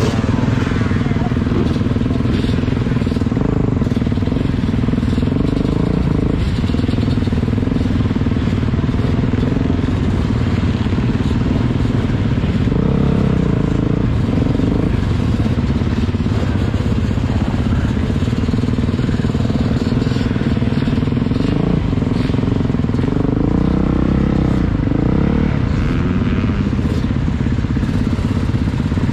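Motocross bikes racing, their engines running hard with the pitch rising and falling as riders rev and shift.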